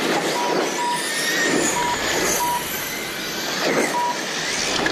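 Radio-controlled race cars passing close by on asphalt, their motors and tyres rising and falling with each pass. Short electronic beeps at one high pitch sound several times at uneven intervals.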